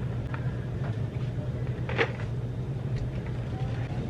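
Steady low drone with a few light clicks, the sharpest about two seconds in.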